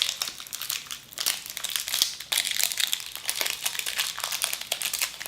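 A candy's individual wrapper crinkling and crackling in the hands as it is opened, in quick irregular crackles.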